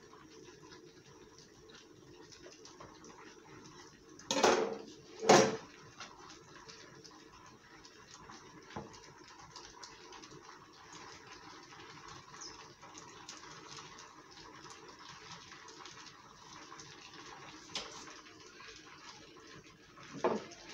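Quiet handling of bread dough on a cutting board, with two loud knocks about four and five seconds in, a small click later and another knock near the end.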